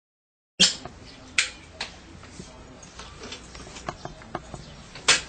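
Handling noise from hand work on the installation: irregular sharp clicks and taps over a low hum. The loudest come about half a second in, just under a second later and near the end, after a short stretch of dead silence at the start.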